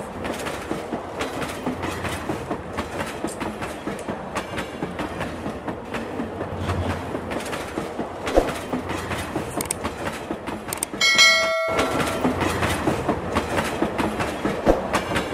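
Battery-powered plastic toy train running around a circular plastic track, with a continuous fast plastic clatter from its motor and wheels. About eleven seconds in there is a brief horn-like tone, which then cuts off.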